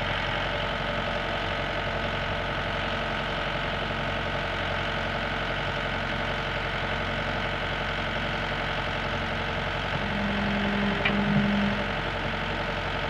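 Komatsu PC120-5 excavator's diesel engine idling steadily. About ten seconds in, a short, louder hum comes twice with a click between.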